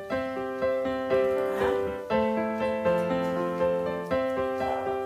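Background piano music: a gentle melody of struck notes, each fading after it sounds, about two notes a second.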